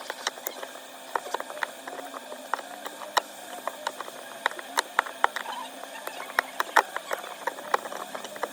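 Small hand tools clicking and tapping irregularly against an iPhone 13 Pro during back-glass replacement, several sharp ticks a second.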